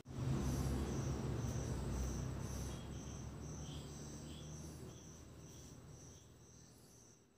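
A cricket chirping steadily, about two to three high chirps a second, over a low hum that sets in loud just after the start and fades away over several seconds.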